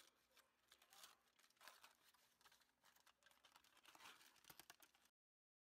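Aluminium foil crinkling faintly as it is handled and unwrapped, with many small sharp crackles; the sound cuts off abruptly near the end.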